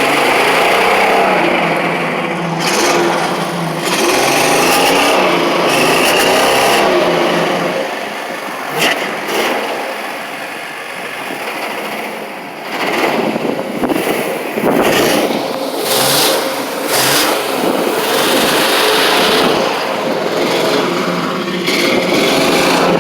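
Van engine revved hard to blow rust and metal debris out of a clogged catalytic converter and exhaust. The revs ease off about eight seconds in and climb again a few seconds later.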